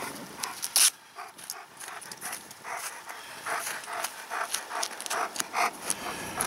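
A dog panting close to the microphone, a quick run of short breaths at about three a second, with a sharp click about a second in.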